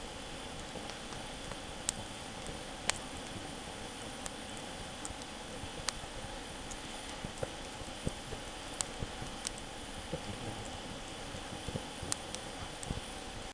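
Wood fire crackling: irregular sharp pops and ticks over a steady hiss.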